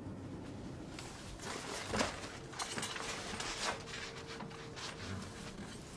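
Soft knocks and rustling as a large bag is handled and pushed up into an airliner's overhead luggage bin, the strongest bump about two seconds in. A faint steady tone sits underneath for a few seconds in the middle.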